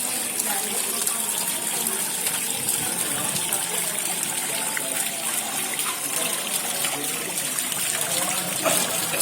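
Steady running, splashing water, with a faint murmur of voices underneath.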